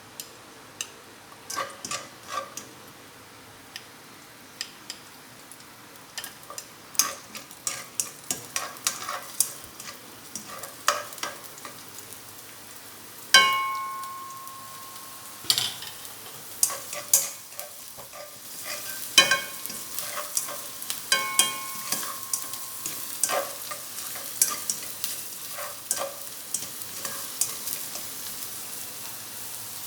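Onion and garlic sizzling in hot oil as they are sautéed, with a spatula knocking and scraping against the pan in quick irregular strokes. A few ringing metallic clangs, the loudest about halfway through. The sizzle grows louder in the second half.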